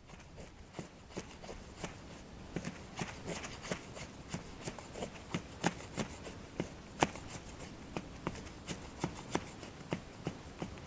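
A large knife shaving curls off a stick of wood: a run of short scraping strokes, about three a second.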